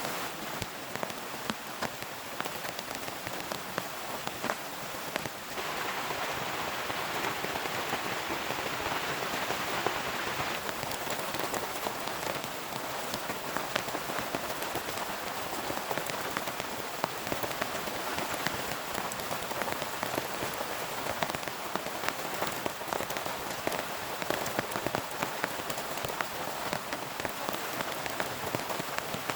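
Heavy rain falling steadily, with many separate drop hits standing out; it grows louder about five seconds in.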